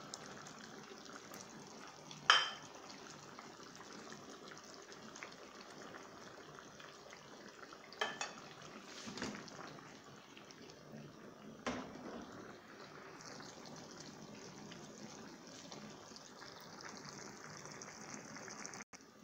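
A pan of okra and chicken stew simmering on a gas stove, with a steady bubbling hiss. Several sharp clinks of cookware against the pan come through, the loudest about two seconds in.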